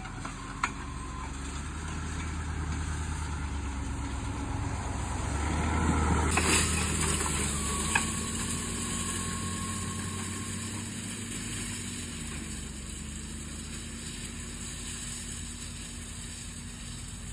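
Ford F-350 pickup truck's engine running as it pulls a wheel hay rake across a field. It grows louder, loudest about six or seven seconds in, then fades as the truck moves away.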